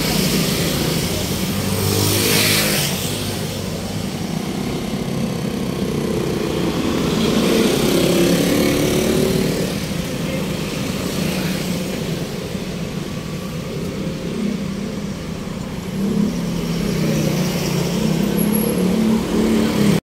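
Road traffic: steady engine and tyre noise from vehicles, with one passing close about two seconds in.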